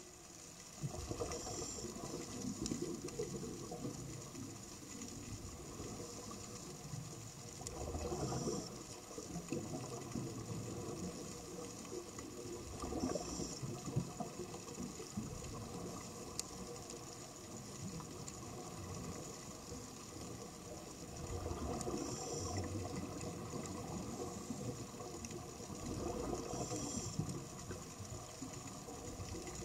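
Scuba diver breathing through a regulator underwater: a high hiss on each inhale and a gurgling rush of exhaled bubbles, repeating every five seconds or so.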